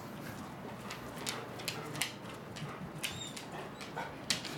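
A golden retriever's claws clicking irregularly on a wooden floor as it walks about restlessly. A faint high squeak comes about three seconds in.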